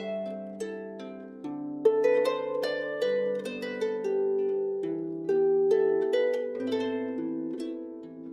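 Background music: a plucked-string melody, harp-like, over held chords.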